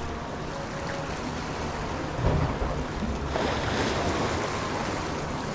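Small sea waves washing and splashing against the base of a concrete breakwater, with wind buffeting the microphone. A low thump comes a little over two seconds in, and a louder splashing rush of water follows about a second later.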